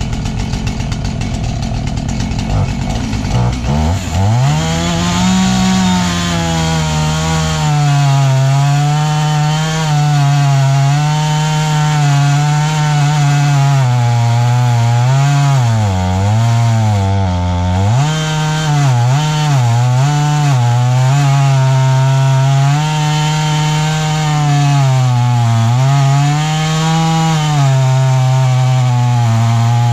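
Chainsaw revving up sharply about four seconds in and then running at high speed as it rips a mesquite log lengthwise into boards. Its pitch dips several times as the chain bogs under load in the cut.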